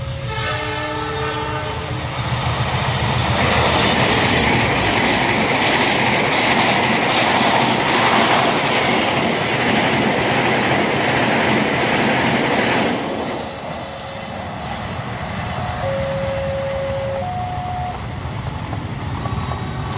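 A passenger train passes close by, hauled by a diesel locomotive. The locomotive's horn sounds briefly at the start, then the carriages' wheels run over the rails loudly for about ten seconds. The noise drops off suddenly about two-thirds of the way in, and a few short steady tones follow near the end.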